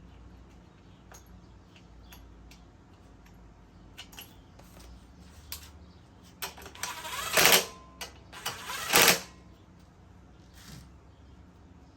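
Clicks and clatter of small metal parts being handled while the carburetor and its linkage are fitted back onto a Kohler XT650 mower engine, with two louder rattling bursts about 7 and 9 seconds in.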